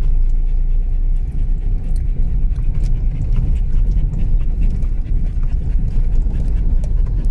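Vehicle driving over a rough dirt track: a steady low rumble of engine and road, with small rattles and ticks.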